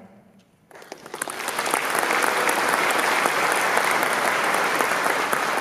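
Audience applauding, starting about three-quarters of a second in and swelling to a steady, loud clapping within about a second.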